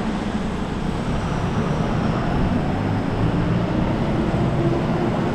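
Diesel engine running steadily, a continuous low rumble.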